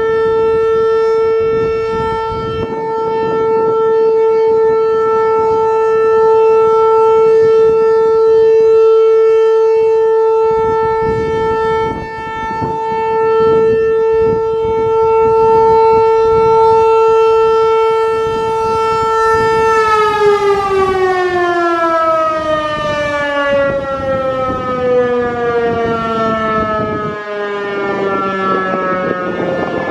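Federal Signal 508-128 outdoor warning siren sounding its Full Alert steady tone, one loud held pitch. About two-thirds of the way through it begins winding down, the pitch falling smoothly as the rotor slows at the end of the test.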